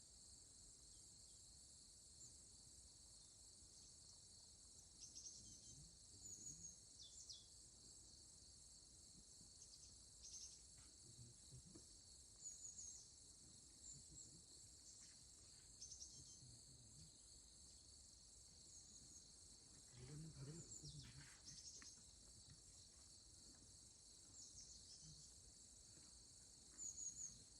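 Grass insects such as crickets chirring steadily and high-pitched, with short high bird chirps now and then, a cluster of them about two-thirds in.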